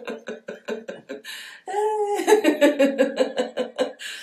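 A woman laughing heartily in rapid rhythmic ha-ha pulses, the deliberate laughter of a laughter yoga exercise. About a second in she draws a quick breath, lets out a higher drawn-out sound, then laughs on in another long run.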